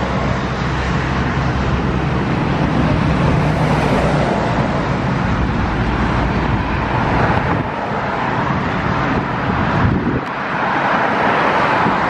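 Loud, steady engine noise with a low hum in the first few seconds and a brighter rushing band near the end.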